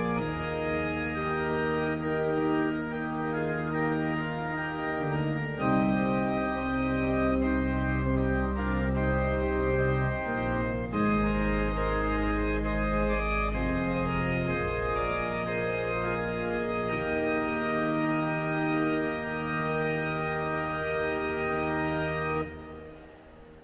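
Church organ playing sustained chords on the manuals over a deep pedal bass, the notes moving in slow steps. The final chord cuts off near the end, leaving a short reverberant fade.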